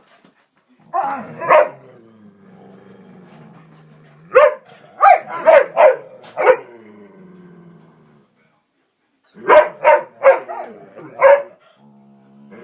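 Dogs (Malamute, Leonberger and Airedale) play-barking and growling: three bursts of loud barks, the first of two and the next two of about five each, with low growling running between them. It is excited play before a walk, not a fight, though it sounds fierce.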